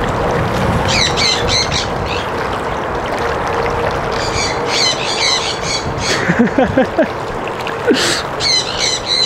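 Birds squawking in three bursts of harsh, high, repeated calls, about a second in, around five seconds in, and near the end, over steady wind noise on the microphone.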